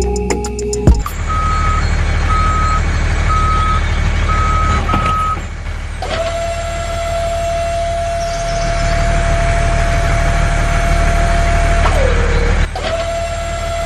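Truck engine running steadily while a reversing alarm beeps five times, about once a second. Then a long steady tone sounds, sagging in pitch as it cuts off, and starts again near the end.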